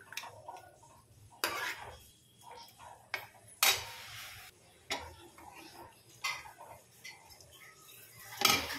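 A steel ladle clinking and scraping against the side of a steel pot while a chickpea curry is stirred. There are single knocks every second or so, a longer scrape a little before the middle, and a louder clatter near the end.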